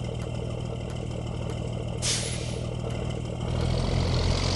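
Bus engine idling steadily, with a short hiss about two seconds in. Near the end the engine gets louder and deeper as it is revved.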